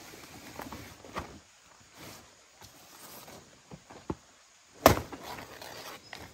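A few scattered knocks and thuds, with the loudest, sharpest knock about five seconds in.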